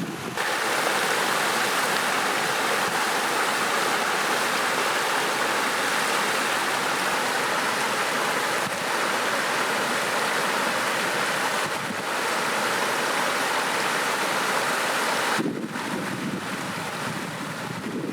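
Stream water flowing over stones, a steady rush that drops a little in level near the end.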